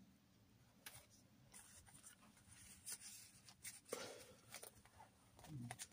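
Faint paper rustling and a few light taps as card tags and pages of a handmade paper journal are handled and turned.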